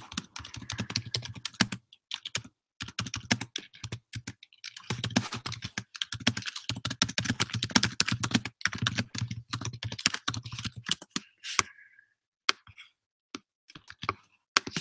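Typing on a computer keyboard: quick runs of key clicks broken by short pauses, thinning to a few separate clicks near the end.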